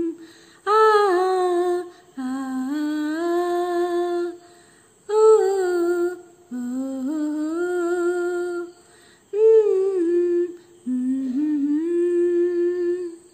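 A woman humming a tune unaccompanied, in six phrases: three short, higher phrases, each followed by a longer, lower held note.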